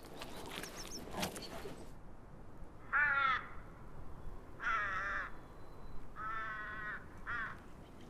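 Ravens calling four times from about three seconds in, each call a short, hoarse, pitched caw, the third one the longest. Before that come faint clicks and rustling with a tiny high chirp.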